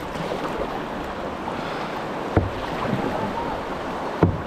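River water rushing steadily around a kayak running through rapids, with two sharp knocks about two seconds apart.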